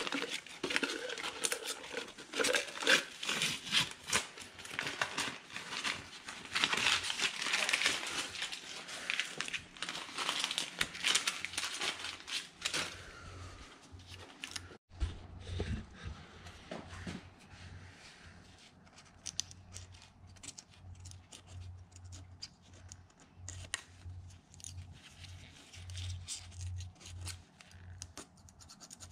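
Paper shop towel rubbing and crinkling as the lifter valley of a small-block V8 is wiped out. About halfway through it gives way to quieter, short scratches of a small blade scraping old RTV silicone sealant off the cylinder head's intake gasket face, with a faint low hum.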